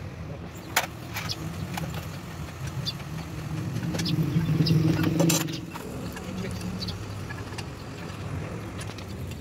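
Low engine hum of a nearby motor vehicle, swelling to a peak about halfway through and then easing back. Several light metallic clicks and clinks of engine parts being handled and set in place sound over it.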